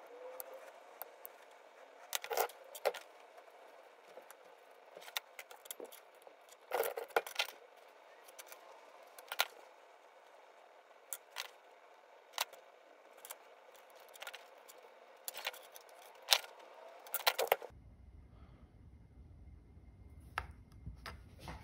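Irregular light clicks, taps and scrapes of a hobby knife, thin wire and a small circuit board being handled on a paper-covered bench, some sharper and louder than others. About three-quarters of the way through the handling stops abruptly, leaving a low hum with a couple of faint clicks.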